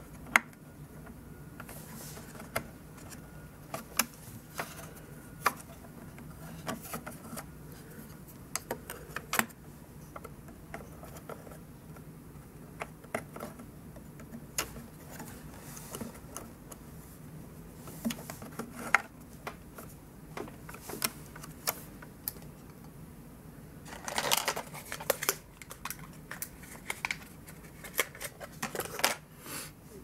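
Scattered small clicks and scrapes of DDR3 SODIMM RAM modules being handled and slid in and out of an iMac's memory slot, with a denser run of scraping rattles near the end.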